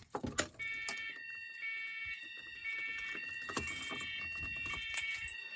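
A home fire alarm system going into alarm as a manual pull station is pulled: electronic horns come on about half a second in and sound steady high tones, with a second set of tones pulsing on and off about once a second.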